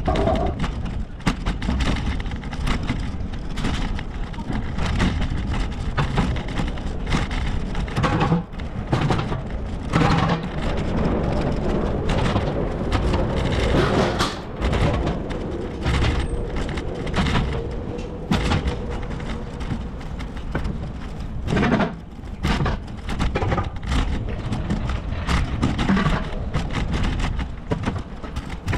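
Wind rumbling on a camera microphone while cycling, with frequent rattles and knocks from the bicycle going over the path.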